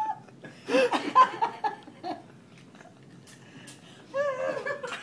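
An elderly woman laughing, in a loud burst about a second in and again near the end.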